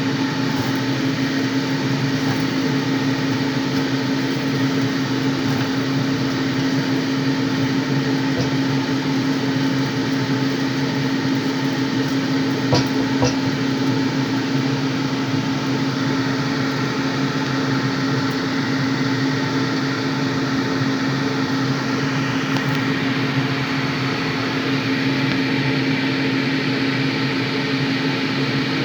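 A motor-driven fan humming steadily over a constant hiss, with two light clicks about thirteen seconds in.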